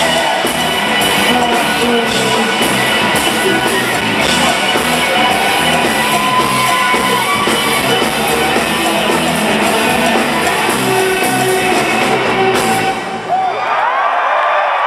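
Live rock band of drums, bass and electric guitars playing the final bars of a song in an arena, stopping abruptly about thirteen seconds in. The crowd cheers and whoops as the band stops.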